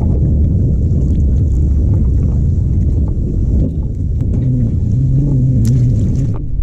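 Low, fluttering rumble of wind buffeting the microphone, with a low hum joining for about two seconds before the sound cuts off.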